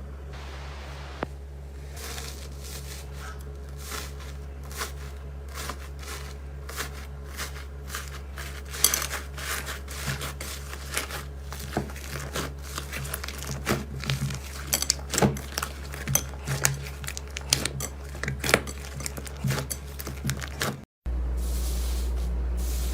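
Slime being handled and squeezed, giving an irregular run of crackles and small pops that grows busier about eight seconds in, over a steady low hum. Near the end it cuts to a louder steady hum with few crackles.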